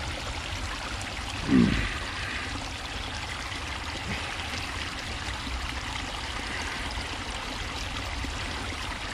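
Steady rushing of rain-swollen water flowing at a dam. About one and a half seconds in, a brief pitched vocal sound cuts in over it.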